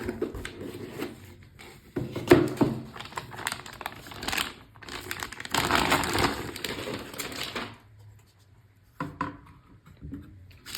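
Packaging rustling and crinkling with light clicks and knocks as a motherboard is handled and turned over. The sound comes and goes unevenly, then stops for a moment about eight seconds in before a short rustle.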